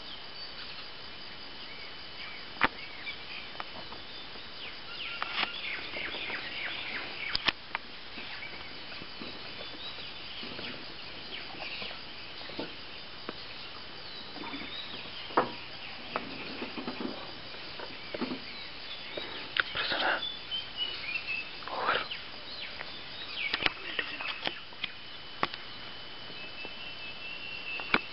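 Forest background of scattered bird calls over a steady high insect tone, with a few sharp clicks here and there.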